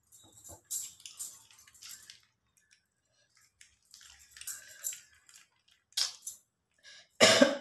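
Plastic sauce sachets and a paper burger wrapper crinkling and rustling in short bursts as a sachet is torn and squeezed by hand. Near the end, a short loud cough.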